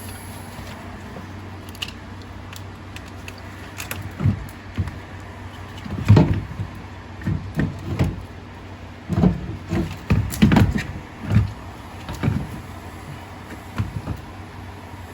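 A run of irregular knocks and clunks, loudest around the middle, from parts and tools being handled during a diesel engine teardown, over a steady low hum.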